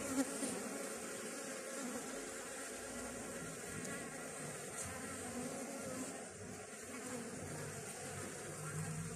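Honeybees buzzing around the entrance of a nucleus hive as a small swarm settles into it: a steady, wavering hum.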